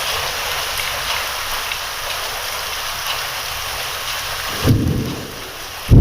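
Steady rain falling, with a short low rumble of thunder about three-quarters of the way through.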